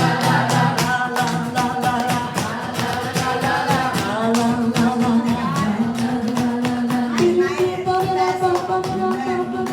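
Live song: a voice sings a wordless melody on long held notes over a steady rhythmic accompaniment.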